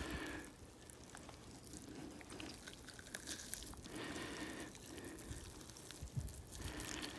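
Faint wet squelching and tearing of a cooked ham being pulled apart by hand, its meat around the 22 LR bullet channels turned to mush.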